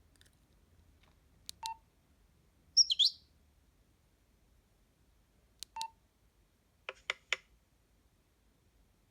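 Nokia 112 phone sounds: keypad presses, each a sharp click ending in a short beep, heard twice. About three seconds in comes a quick, loud, bird-like chirp tone from the phone's speaker, and near seven seconds a rapid run of three ticks.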